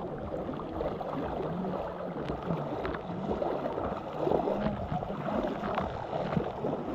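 Shallow lagoon water lapping and sloshing right at the microphone, which is held at the water surface, with a few small splashes.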